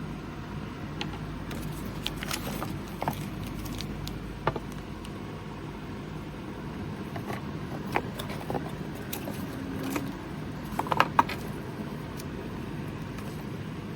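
Electric fan running with a steady hum, with scattered light clicks and knocks of things being handled; the loudest is a quick cluster of clicks about eleven seconds in.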